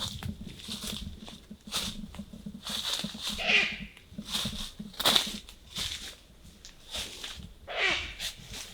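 An animal calling: a falling cry heard twice, about four seconds apart, with sharp clicks or snaps in between.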